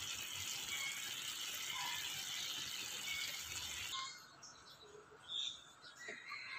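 Giant clam and long beans sizzling and bubbling in sauce in a wok, a steady hiss that cuts off suddenly about four seconds in, leaving a faint background with a few high chirps.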